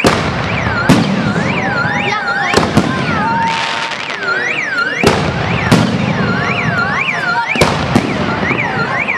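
Aerial firework shells bursting with sharp bangs, about eight in quick, irregular succession. Under them a car alarm wails steadily, its tone sweeping up and down about twice a second.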